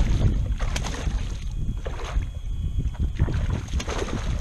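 Wind buffeting the microphone, with water lapping and slapping against a plastic fishing kayak's hull in a few sharp strokes.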